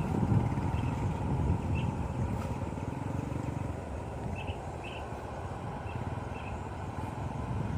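Steady low rumble of a jet airliner's engines, with a faint steady whine and a few faint short chirps above it.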